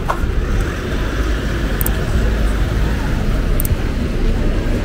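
City street ambience: steady traffic noise with a heavy low rumble, and a few faint high clicks.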